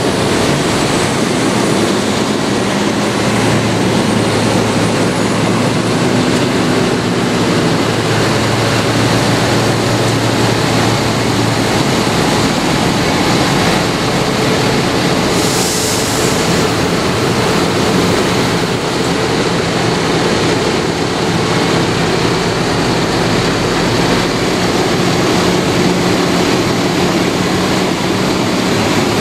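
Modern diesel tractors driving past one after another in a convoy: a steady mix of engine drone and tyre noise, with the engine note changing as each tractor goes by. A short hiss comes about halfway through.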